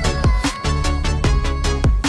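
Electronic background music with a steady drum beat, held synth tones and deep bass hits that slide down in pitch.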